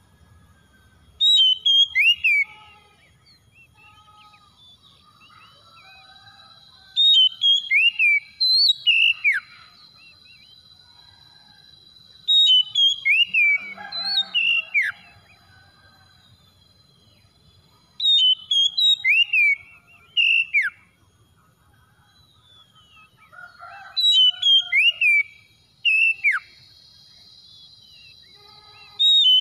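Oriental magpie-robin song: loud groups of clear whistled notes that glide up and down, repeated about every five to six seconds, with softer chirps in between.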